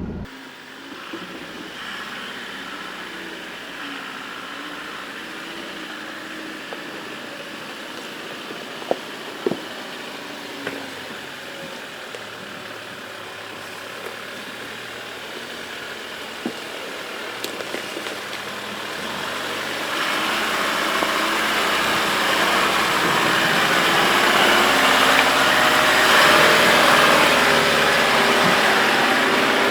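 4WD vehicle engine running as it works slowly along a rutted off-road track, with a few knocks about nine to ten seconds in. It gets noticeably louder about twenty seconds in.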